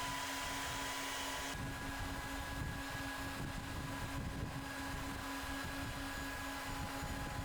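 Steady machine hum with a rushing hiss, its sound shifting about one and a half seconds in.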